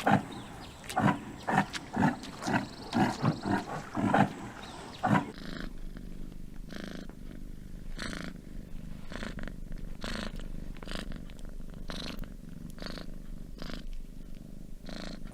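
A cat purring. Short, loud pulses repeat over the first five seconds, then the purr goes on softer, in regular breaths about once a second.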